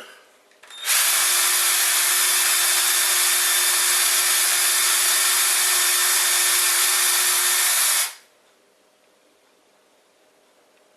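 A handheld power tool starts about a second in, runs steadily at one speed with a constant hum for about seven seconds, then stops abruptly.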